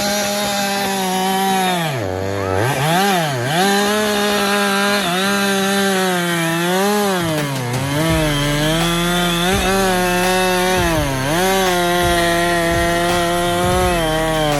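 Stihl MS 881, a 121.6 cc two-stroke chainsaw, running at high revs as it cuts through wood. The engine pitch dips sharply several times as the saw bogs under load in the cut, then recovers.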